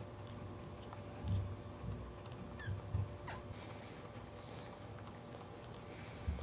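Newborn Cairn Terrier puppy giving two faint, short squeaks, one sliding down in pitch, among soft low thumps of the dogs shifting on the blanket.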